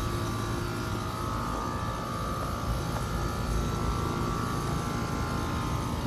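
An outdoor air-conditioner condenser unit running: a steady hum with a thin, constant whine over a low rumble.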